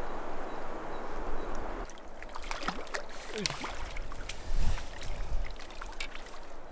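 Steady rush of river water, then after about two seconds close splashing and sloshing at the water's edge as a hooked trout is played to a landing net in the shallows, with a dull thump near the middle.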